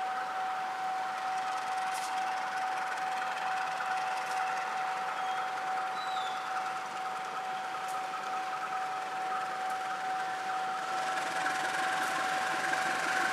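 KAI diesel locomotive running as it hauls a passenger train slowly along the track, with a steady high-pitched whine over a constant mechanical hum.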